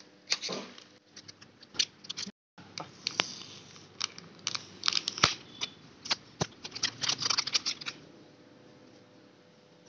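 Plastic packaging crinkling and clicking under gloved hands as a 2.5-inch SSD is unpacked from its anti-static bag and blister pack: irregular sharp clicks and rustles that die away about eight seconds in.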